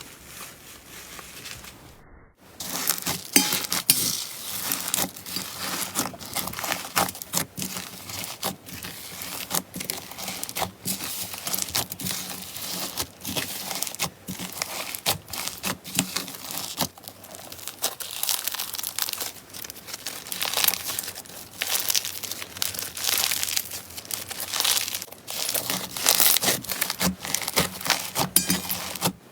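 Slime being squeezed and kneaded by hand, making dense crackling, popping and squelching clicks that rise and fall in waves. It gets much louder about two seconds in.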